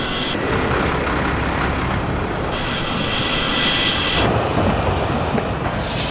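Jet aircraft noise: a steady rush with a high whine that cuts out and comes back twice.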